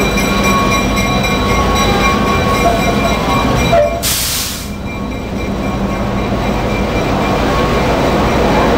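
Passenger excursion train running, a steady low rumble of the moving train, with a short hiss about four seconds in.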